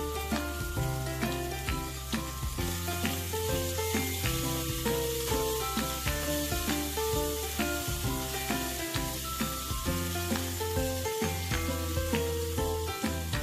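Canned tuna sizzling in oil in a frying pan, with oyster sauce just poured in, while a spatula stirs it. Background music with a melody and a steady bass plays along.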